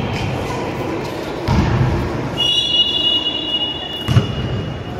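A basketball thudding on a concrete court, twice: about one and a half seconds in and again near the end. A steady high whistle-like tone comes in around halfway and fades away.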